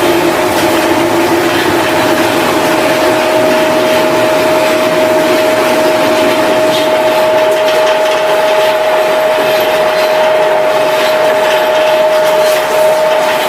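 Factory production machinery running steadily and loudly, with a constant whine over a dense mechanical clatter.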